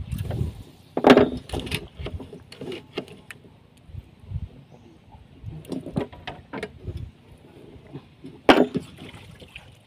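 Irregular knocks and thumps on a small fishing boat, over a faint wash of water; the loudest knocks come about a second in and again near the end.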